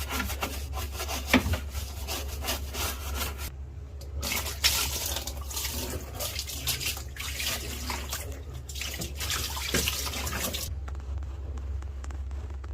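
Water running and splashing, with scattered knocks and clatter, over a steady low hum. The splashing stops about eleven seconds in, leaving the hum.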